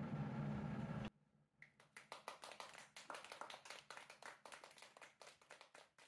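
A steady low hum cuts off abruptly about a second in. Then comes faint hand clapping from a few people, irregular and thinning out toward the end.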